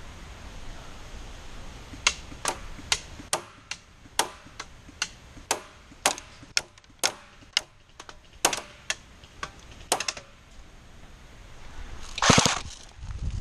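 Airsoft gun fired in single shots: about twenty sharp cracks over some eight seconds, roughly two a second at uneven spacing. A brief loud noisy burst near the end.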